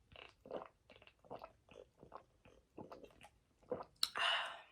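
Close-miked mouth sounds of eating or drinking: short wet smacks and clicks about every half second, then a louder breathy rush about four seconds in.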